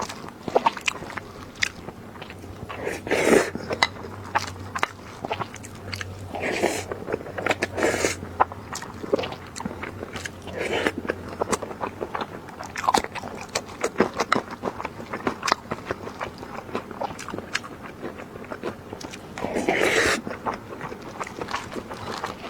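A person eating close to the microphone: chewing and biting, with many sharp wet clicks and crunches and a few longer, louder bursts about 3, 7 and 20 seconds in.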